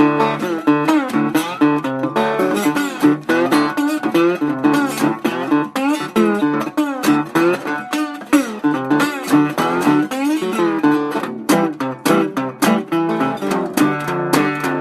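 Slide guitar playing a blues instrumental passage: a fast run of plucked notes that glide in pitch from one to the next.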